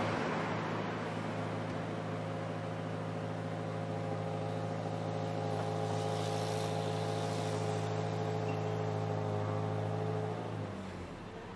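Steady low mechanical hum, like a running engine or motor, made of several held tones. It stops suddenly about ten and a half seconds in.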